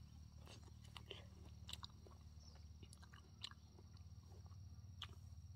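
Faint scattered short clicks and taps over a low steady hum.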